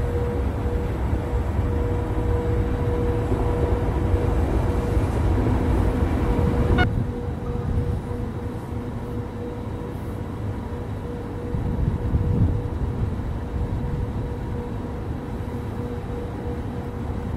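Electric-hauled passenger train of coaches rumbling along the tracks, a steady low rumble that builds slightly, then cuts off suddenly about seven seconds in. Quieter station ambience follows, with a brief swell of noise near the end.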